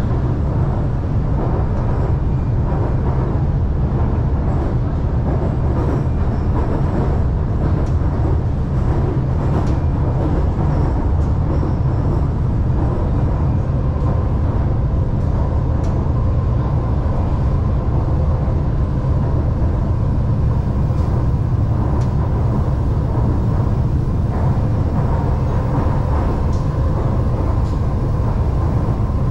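Shanghai Metro Line 2 train running at speed between stations, heard from inside the car: a steady, even rumble of wheels on track, with a faint steady whine under it.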